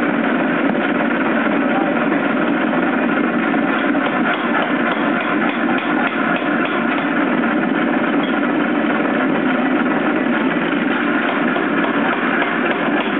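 250 lb Nazel air hammer running, a dense, steady mechanical clatter that never pauses.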